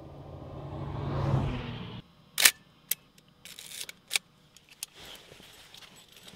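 Car noise swells for about two seconds and cuts off abruptly. Then a Konica 35 mm film SLR fires with a sharp shutter click, followed by a short rasping ratchet and a few more small clicks as the camera is wound on and handled.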